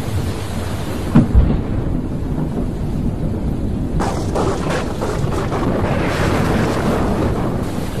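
Thunderstorm: thunder rumbling over steady heavy rain, with a sharp crack of thunder a little over a second in and a crackling peal around the middle.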